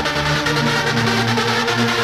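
Hard house (bouncy, donk-style) DJ mix playing, with a fast steady beat and sustained synth and bass notes.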